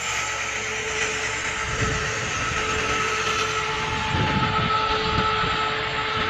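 Diamond wire saw cutting through concrete: a steady machine whine over a grinding hiss, with irregular low rumbling that builds from about two seconds in.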